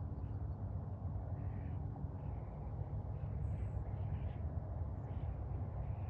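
Outdoor background noise: a steady low rumble, with a few faint short higher calls now and then.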